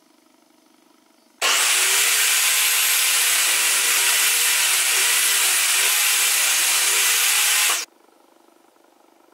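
Table saw cutting through pine held on a crosscut sled: a loud, steady sawing noise that starts abruptly about a second and a half in and stops abruptly some six seconds later.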